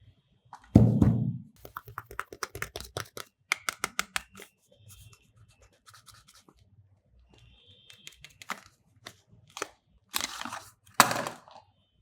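Soap packaging being unwrapped by hand. A dull thump about a second in is followed by a run of rapid crinkling clicks, and near the end come two scratchy rustling sweeps.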